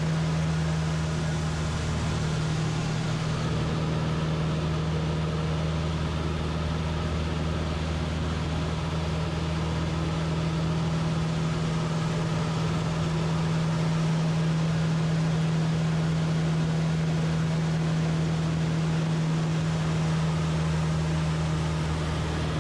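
Van's RV-8's piston engine and propeller running steadily in flight: a constant drone with a strong low hum.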